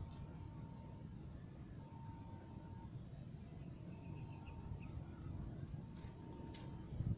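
Insects trilling in the grass: a thin, high steady buzz that stops about three seconds in, with shorter repeated chirps around it, over a low rumble.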